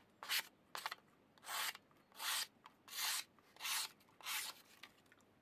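Steel knife blade stroked edge-first across a sharpening stone: a regular series of short, hissy scrapes, about one every three-quarters of a second, as the edge is being sharpened.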